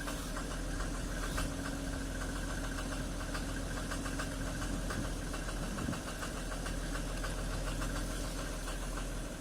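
Mercedes W124 E300 diesel engine idling steadily with a fast, even clatter of knocks from its new injector nozzles.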